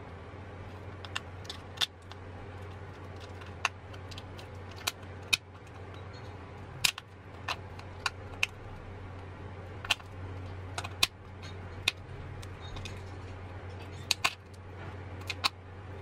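Homemade clear-plastic pop-it fidget toy having its bubbles pressed, each popping with a sharp click at irregular intervals, about one or two a second, over a steady low hum.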